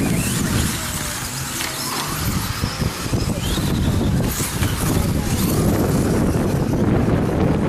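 Radio-controlled short course trucks racing on a dirt track, their motors whining up and down in pitch as they accelerate and brake, over a steady low rumble.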